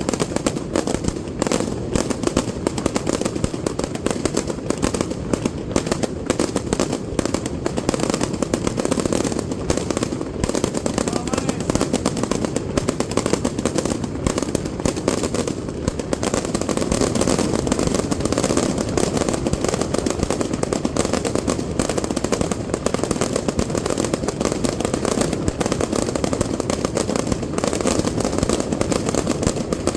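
Fireworks display: a dense, unbroken barrage of exploding shells and firecracker reports, the bangs following one another so fast that they run together into a continuous crackle and rumble.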